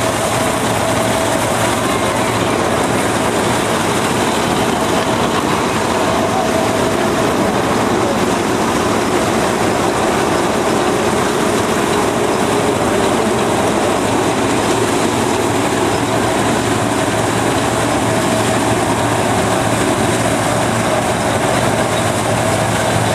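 Vintage pull-type combine harvester running and threshing, powered by its tractor: a steady, loud mechanical clatter of the threshing works with a faint engine drone beneath.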